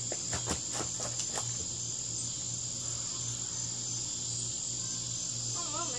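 Steady high-pitched insect chorus, with a low steady hum beneath it and a few faint light clicks in the first second and a half.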